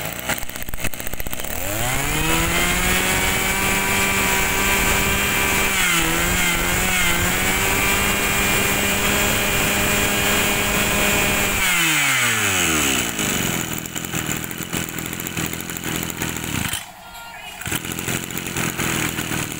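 Mitsubishi 261 brush cutter's two-stroke engine revved up to full throttle about two seconds in, held high with a brief wobble midway, then throttled back to a rough idle about twelve seconds in.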